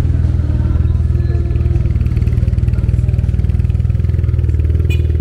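An engine idling close by, with a low, rapid, even putter. A short sharp click near the end.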